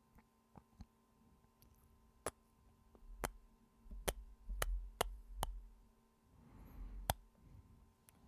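Close-up kiss sounds into the microphone: a string of sharp lip smacks, some half a second apart, with deep muffled thumps against the mic and a soft breath shortly before the last smack.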